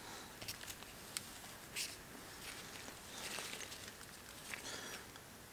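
Hands handling piston rings and tools at the bench: a few faint light clicks and rustles, scattered through.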